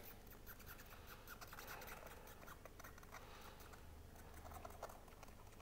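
Faint, irregular scratching and small ticks from a glue tube's nozzle drawn along the edge of a latex dry-suit neck seal as a bead of adhesive is squeezed on.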